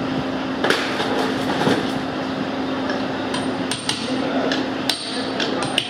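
Sharp metal taps and clicks of a hand tool working on an aluminium motorcycle engine crankcase, a few scattered through, over a steady workshop hum.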